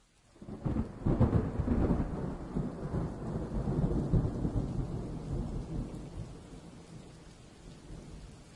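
A long roll of thunder over rain. It swells in about half a second in, rumbles loudest for the next few seconds, then slowly dies away.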